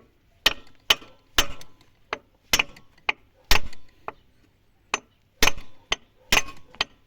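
Hammer blows through a wooden board onto the new CV joint, driving it onto the driveshaft splines past its retaining clip. About a dozen sharp knocks, roughly two a second with short pauses between groups.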